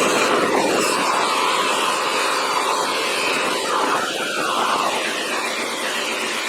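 Shop vacuum running steadily.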